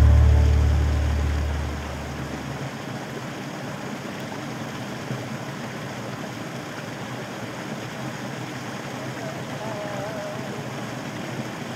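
Small waterfall in a snowy creek, water running steadily over the rocks, after music fades out in the first two seconds. A faint, brief wavering tone sounds near the end.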